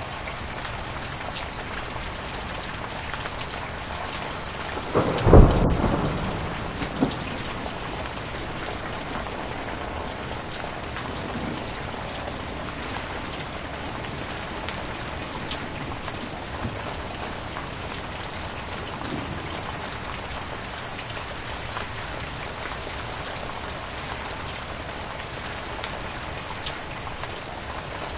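Heavy rain falling steadily. About five seconds in, a sudden clap of thunder dies away within a second or so, followed by a smaller crack about a second and a half later.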